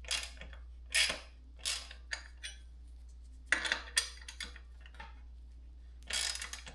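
Irregular metal clinks and scrapes from a homemade headset press, a long threaded bolt with steel washers, and the tool tightening it, as a headset cup is pressed into a bicycle head tube.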